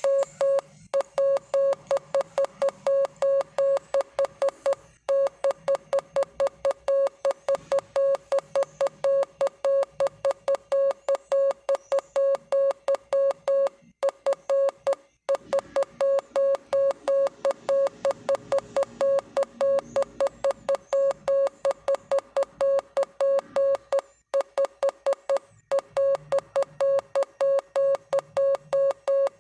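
Morse code sent as a single steady mid-pitched beep tone, keyed rapidly into short and long beeps, with brief pauses between groups.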